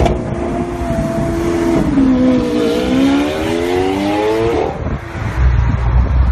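Lamborghini Aventador V12 accelerating ahead on the road. The engine note holds steady, dips, then climbs in pitch for about two seconds before dropping away, with the low road rumble of the following car underneath.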